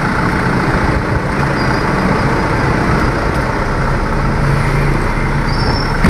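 Steady rushing noise inside a Mitsubishi Canter truck cab, with the diesel engine running and the newly fitted air conditioner's blowers on.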